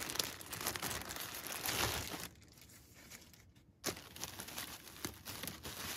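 Plastic bag crinkling and rustling as hands rummage in it and pull clothing out, loudest for the first two seconds, then a short lull, a single sharp click, and softer rustling of fabric and plastic.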